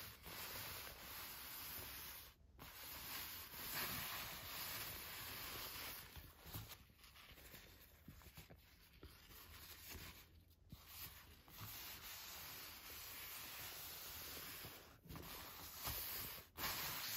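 Vintage adidas sprinter shorts of shiny synthetic fabric being handled and smoothed by hand, the fabric rustling and rubbing softly, with a few brief breaks.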